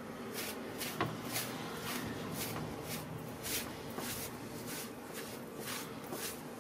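A cloth wiped over the skin of a plucked duck in short rubbing strokes, about two a second, with one sharp click about a second in.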